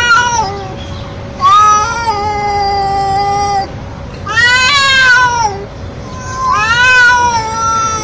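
Young male cat calling with loud, drawn-out meows: the end of one call, then three long calls of one to two seconds each, every one rising and then falling in pitch.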